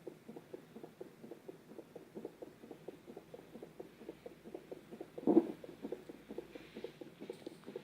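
Fetal heartbeat heard through a Doppler ultrasound monitor: a fast, even pulsing of about two and a half beats a second, the normal quick rate of a baby's heart in the womb. A louder thump comes about five seconds in.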